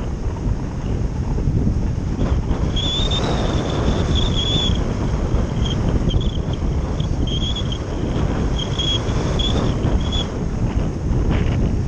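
Wind rushing over the onboard camera's microphone on a radio-controlled slope-soaring glider in flight, a steady dense rumble. Short high-pitched whines come and go over it.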